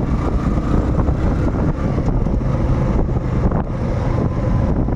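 Motorcycle running steadily on the road while being ridden, with wind buffeting the microphone.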